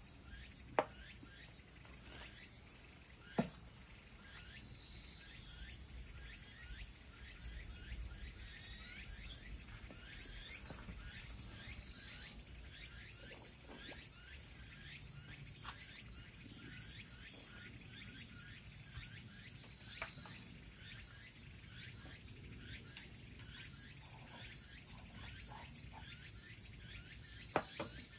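Insects chirping outdoors in a rapid, high-pitched pulse that never lets up, over a low background rumble. Three sharp clicks stand out: about a second in, a few seconds in, and near the end.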